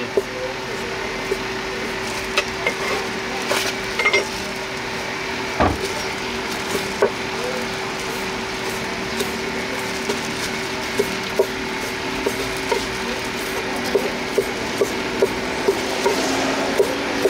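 Knife chopping sundae and offal on a wooden cutting board: scattered knocks, settling into a steady run of chops, about two to three a second, near the end. A steady low hum runs underneath.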